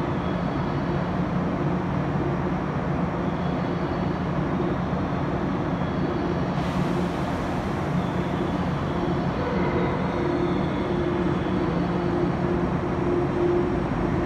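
A 413 series electric train creeping into the platform, its motors and wheels giving a steady running hum. A faint hiss joins about halfway through.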